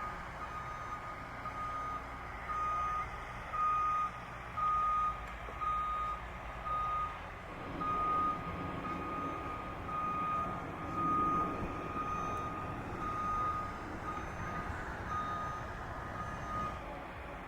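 Reversing alarm on a construction vehicle, beeping at an even pace over the low rumble of its engine. The beeping stops shortly before the end.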